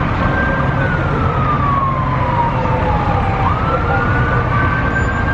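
Emergency vehicle siren, one wail sliding slowly down in pitch for about three seconds, then quickly rising again and holding, over a steady low engine rumble.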